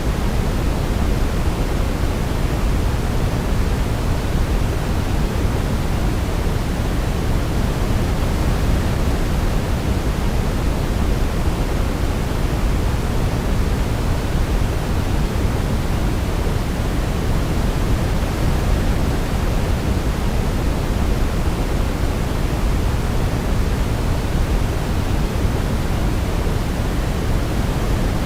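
Steady, unchanging noise from a baby-sleep white-noise track, heavier in the low end, like a deep even hiss. No melody comes through over it.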